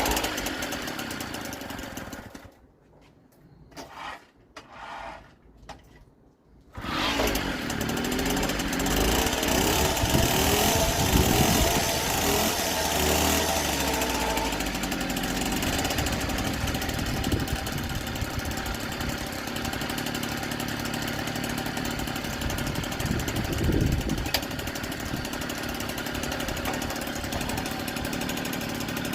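NSU Quickly S23 moped's small two-stroke single-cylinder engine firing up about seven seconds in, after a few short sounds, on its first start after a rebuild, then running on steadily.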